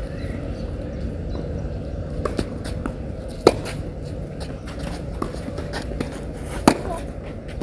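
Tennis racket striking the ball twice, about three seconds apart, in a baseline rally, with a few fainter ticks of bounces or footsteps on clay in between.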